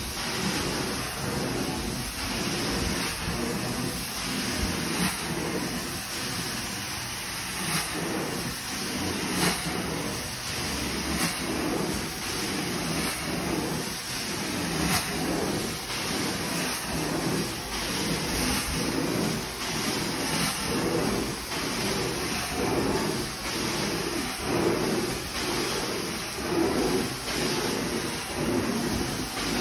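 Carpet-extraction machine's vacuum pulling water up a long hose through a floor wand pushed across carpet, a steady rush that swells and eases with each stroke of the wand.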